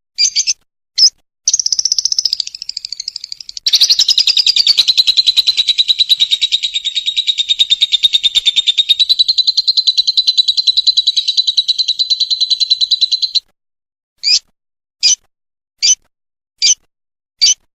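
Lovebird 'ngekek': after a few short chirps, a long, rapid chattering trill held for about ten seconds, then broken off into single sharp chirps under a second apart.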